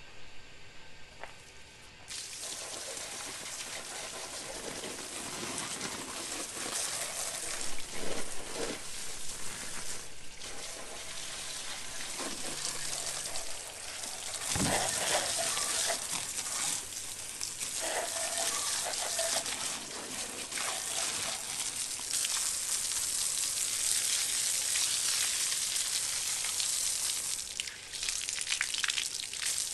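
Liquid being sprayed onto a reel mower to clean it: a steady spray hiss that starts about two seconds in and swells and dips as the spray moves over the mower.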